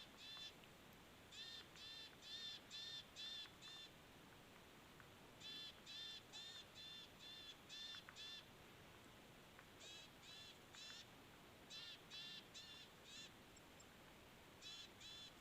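A bird repeating a short, clear call, about two a second, in bouts of two to seven calls with short pauses between.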